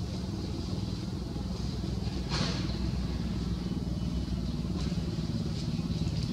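Steady low hum of an engine running, with a single sharp click about two and a half seconds in.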